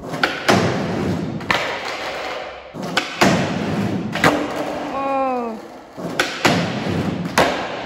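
Skateboard wheels rolling on a concrete floor, broken by several sharp clacks and thuds as the board is popped and lands. A brief voice sound about five seconds in.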